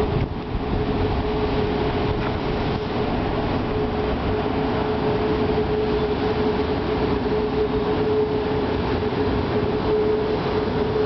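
Steady machinery drone on a drillship: a constant hum over rumbling noise.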